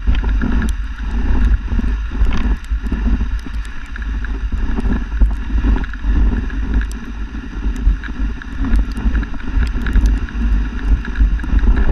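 Dog sled running over snow, heard from a camera mounted on the sled: a steady rumble and hiss of the runners with wind buffeting the microphone and scattered small clicks.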